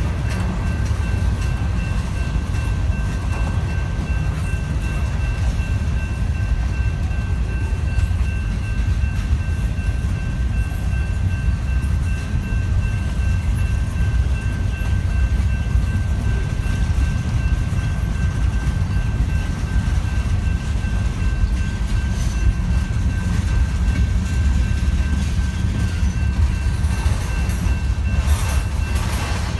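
Manifest freight train rolling past: a steady low rumble of wheels on rail, with a faint steady high whine over it and a few sharp high clicks near the end.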